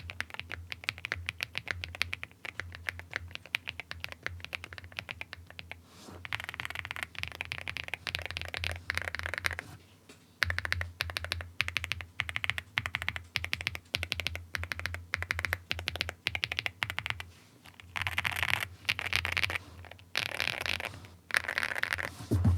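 Zoom75 mechanical keyboard with lubed Kinetic Labs Husky linear switches, foam-filled and tape-modded, being typed on fast: dense runs of keystrokes with a short break about ten seconds in.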